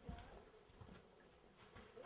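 Near silence, with a few faint soft knocks and clicks.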